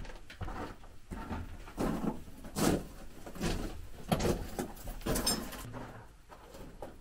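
Footsteps and scuffing on the gravelly rock floor of a small cave as people climb in, an irregular run of steps and knocks, heaviest in the middle seconds, with a closed, boxy echo.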